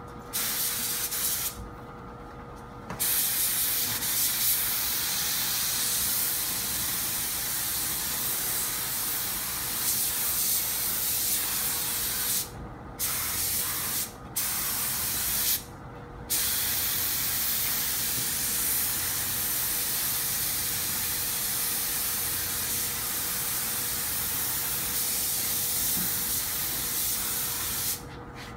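Compressed-air paint spray gun hissing as it sprays metallic paint, bronzing powder mixed in clear coat, in long passes. The hiss stops briefly a few times where the trigger is released.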